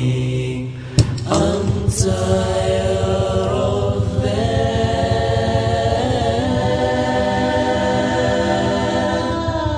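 Vocal nasheed music: several voices in close harmony hold long sustained notes without clear words over a low hum. There is a sharp click about a second in.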